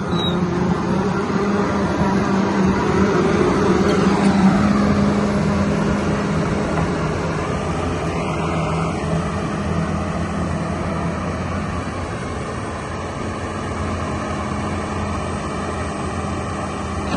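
Caterpillar 320D2L excavator's diesel engine running steadily, a little louder in the first few seconds before easing off slightly.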